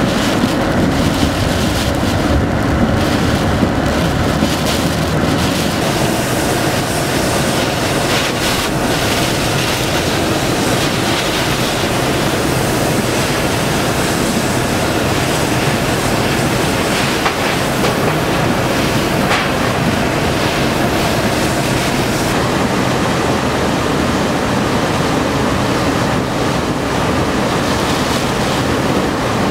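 Hurricane wind and heavy driving rain making a steady rushing noise, with wind buffeting the microphone.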